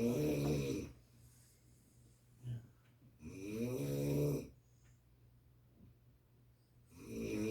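A person snoring: a snore at the start, one in the middle and one beginning near the end, each about a second long, with a steady low hum underneath.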